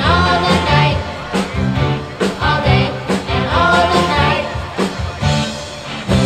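Rock music with a singing voice, guitar and drums.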